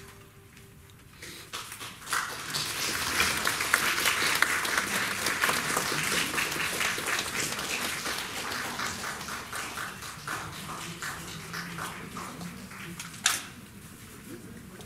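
Audience applause in a concert hall, starting about a second in just after the last note of the music fades, swelling quickly and then slowly thinning out. A single sharp knock stands out near the end.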